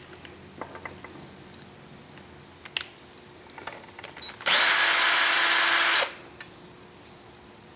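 DeWalt 20V MAX cordless drill/driver running at steady speed for about a second and a half, then stopping sharply, as it backs out one of the screws that hold the transmission's input-shaft flange. A few light clicks and taps come before it.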